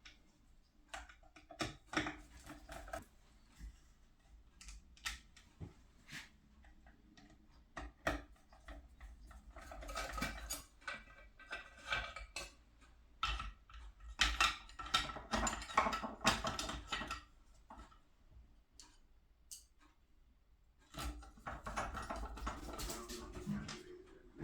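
Irregular clicks, knocks and metallic clatter of tools and parts being handled, with busier stretches about ten seconds in, from about thirteen to seventeen seconds, and near the end.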